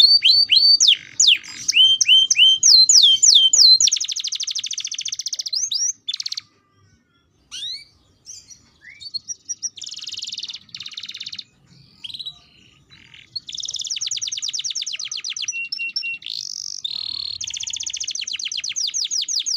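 Domestic canary singing: long, fast trills of repeated high notes, with downward-sweeping notes at first. About six seconds in the song drops to a short silence and a few scattered notes, then the rapid trills return and run on, one brief steady whistle among them.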